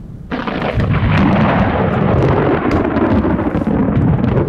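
A close thunderclap: a sudden crack about a third of a second in, then loud thunder rolling on for several seconds.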